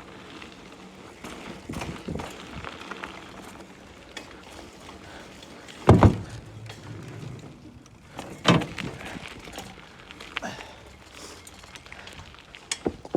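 BMX bike ridden fast over a dirt trail: a faint rumble with several sharp knocks and thuds as it hits bumps and lands, the loudest about six seconds in and others near eight and a half, ten and thirteen seconds.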